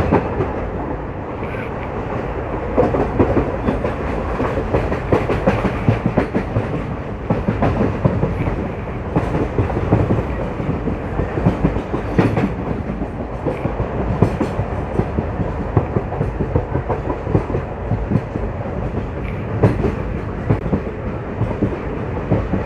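Moving passenger train running along the track, heard from aboard: a steady rumble with frequent irregular clicks and clatters of the wheels over rail joints.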